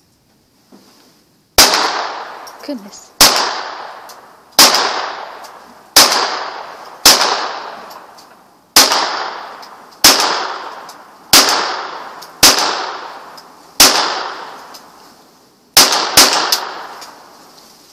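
Ruger 22 Charger .22 LR semi-automatic pistol fired about a dozen times at an unhurried pace, roughly one shot a second, with two quick shots near the end; each sharp crack trails off in an echo.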